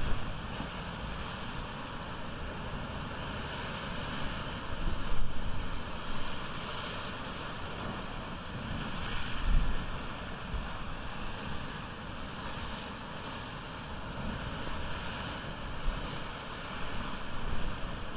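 Ocean surf washing in steadily, with wind gusting against the microphone several times.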